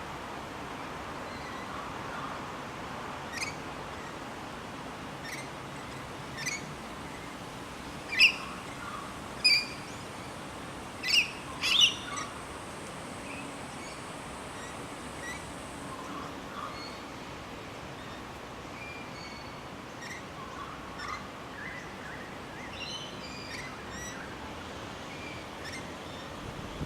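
Birds chirping: scattered short, sharp chirps, the loudest a run of about five between eight and twelve seconds in, over a steady background hiss.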